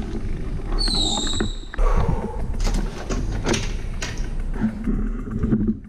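Rattling and knocking of a bicycle being handled and brought to a stop, with a brief high squeak about a second in, over rumble on the bike-mounted microphone.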